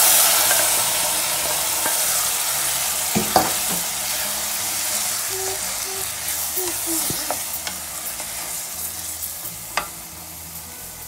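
Precooked tindora (ivy gourd) and its liquid poured into a hot pan of fried onion masala: a loud sizzle at the start that slowly dies down as a spatula stirs the curry, with a few knocks of the spatula against the pan.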